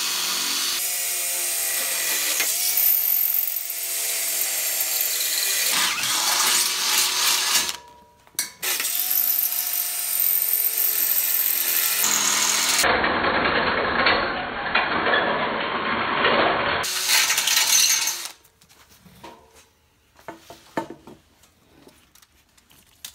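Cordless drill boring through a steel tube: the motor spins up with a whine whose pitch dips as the bit bites into the metal. It stops about eight seconds in, then drills again in a long run that ends about eighteen seconds in. Light clicks and handling sounds follow.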